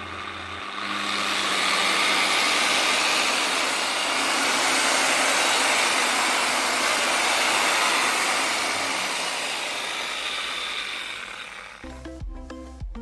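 DeWALT DWP849X rotary polisher's electric motor switched on with a click, running up to speed within about a second and running steadily, then winding down over the last few seconds.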